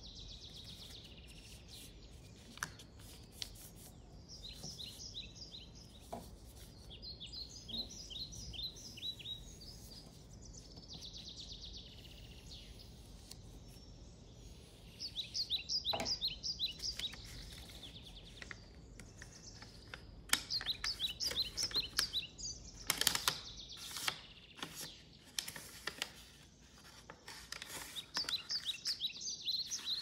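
Short runs of high bird chirps repeat throughout. Paper crinkles and rustles as a sheet is folded and creased by hand, loudest in a stretch of handling about two-thirds of the way through and again near the end.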